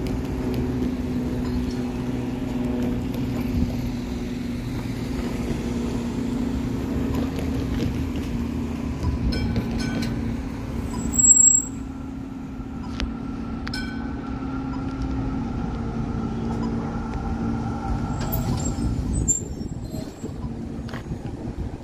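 B2-class tram running on street tracks, coming closer and passing, over a steady hum of road traffic. About halfway through, a short high-pitched squeal is the loudest sound, among scattered clicks and rattles.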